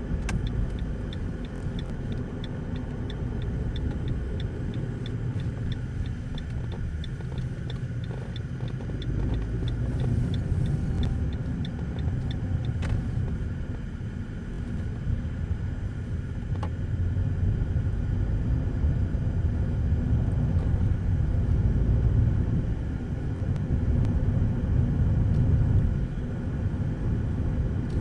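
Car driving, heard from inside the cabin: a steady low engine and road rumble that swells and eases with the driving. For the first dozen seconds a turn-signal indicator ticks evenly, about three clicks a second, then stops.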